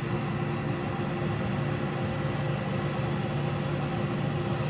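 Vintage Kenmore dehumidifier running: its refrigerant compressor and fan give a steady hum with a faint whine over an even rush of air.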